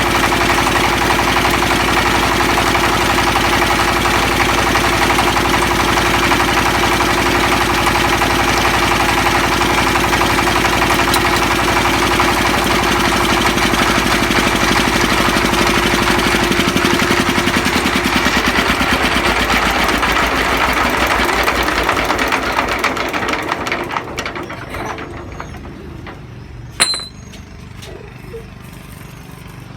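Puffed-rice-stick extruder machine (cối nổ bỏng) running steadily on its test run, then slowing and dying away about two-thirds of the way through; a single sharp click follows near the end.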